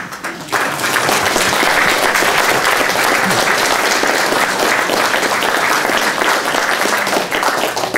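Audience applauding, starting suddenly about half a second in and fading near the end.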